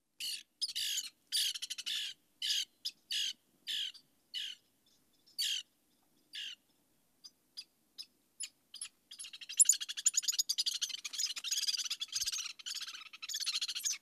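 Recorded Lewis's woodpecker calls, high-pitched. First comes a series of about ten short harsh calls, then a few faint scattered notes, then from about nine seconds a dense run of rapid chattering calls.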